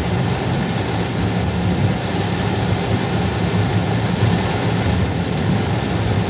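Inside a car's cabin while driving in heavy rain: a steady hiss of rain and tyres on the flooded road over the low hum of the car's engine.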